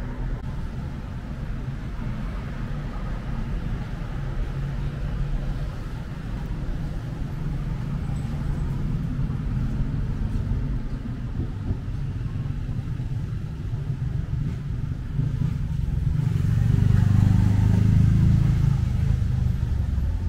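Motor vehicle engine and road noise, a steady low rumble that swells louder for a few seconds about sixteen seconds in, as a vehicle passes or speeds up.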